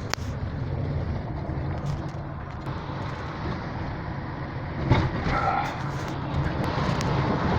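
Car on the move: a steady low rumble of engine and tyre noise.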